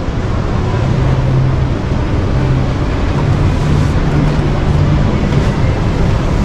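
Steady, loud exhibition-hall background noise: an even din with a low hum that shifts in pitch now and then.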